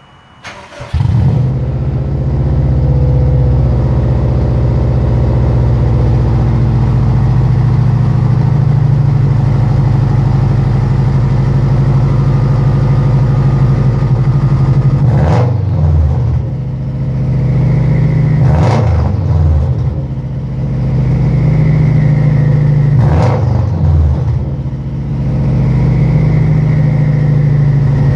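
2005 Subaru WRX STI's turbocharged flat-four engine starting about a second in and then running steadily, with three short throttle blips in the second half. The exhaust has a pretty bad leak.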